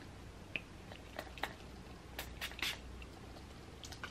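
Three quick spritzes from a fine-mist pump spray bottle of energizing face mist, a little past halfway, with faint clicks of the bottle being handled before them.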